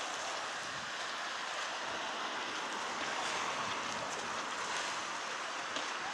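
Steady outdoor wind and water noise, with a couple of faint ticks, one near the end.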